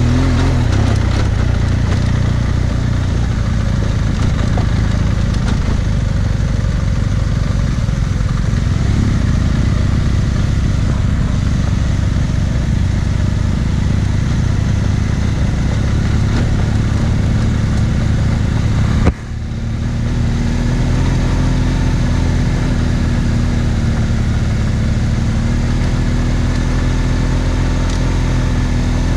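BMW R1200GS Adventure's boxer twin engine running steadily as the motorcycle rides a rough gravel track, heard from the bike itself, its pitch nearly flat. A single sharp click cuts in about two-thirds of the way through.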